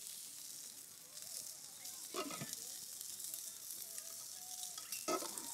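Sausages and ćevapi sizzling on a wire grill grate over charcoal: a steady crackling hiss of fat spitting. Two short louder sounds come about two and five seconds in.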